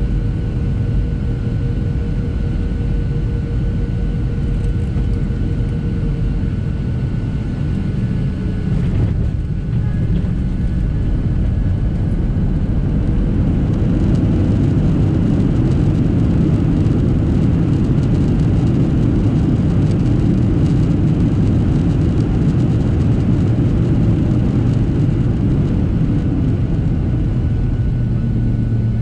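Cabin sound of a Boeing 737-700 landing: the CFM56-7B engines' steady rumble with a whine that fades out in the first few seconds, a change around nine seconds in as the jet touches down, then a louder low rumble from about fourteen seconds in through the rollout on the runway.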